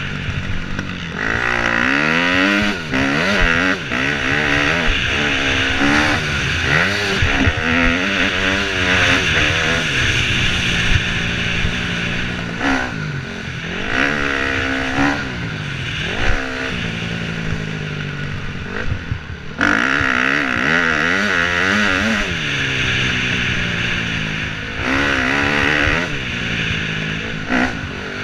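KTM 250 dirt bike engine revving up and falling off again and again as the rider accelerates, shifts and rolls off the throttle, under steady wind rush on a helmet-mounted microphone.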